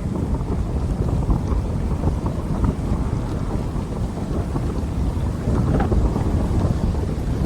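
Heavy rain falling, a dense steady patter over a deep low rumble, cutting in suddenly at the start.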